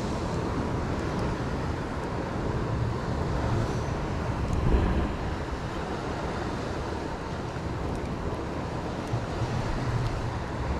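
Steady low rumble of wind on the microphone, with one brief louder thump near the middle.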